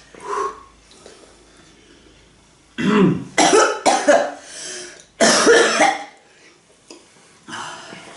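Coughing and throat clearing from people eating hot chili peppers, a reaction to the pepper burn: a cluster of coughs about three seconds in, a loud one just after five seconds, and a weaker one near the end.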